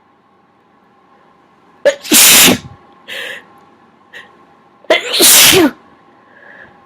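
A person sneezing loudly twice, about three seconds apart, each sneeze with a short sharp catch of breath just before it and a brief breath sound between them. The sneezes are set off by tickling the inside of the nose with a cotton swab.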